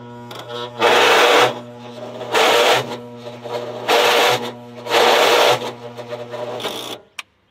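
Agway GT 1846 garden tractor's electric starter cranking the engine, a steady hum with four loud surges, stopping abruptly after about seven seconds without the engine starting.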